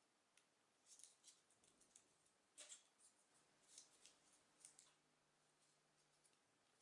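Faint, crisp rustles and clicks of folded paper as 3D origami modules are pushed together, a handful of scattered crackles with the sharpest about two and a half seconds in.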